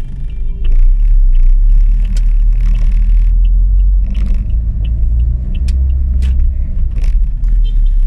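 Car interior rumble from the engine and road while driving slowly in traffic, heard from inside the cabin. It is loud and steady, with a few sharp clicks along the way.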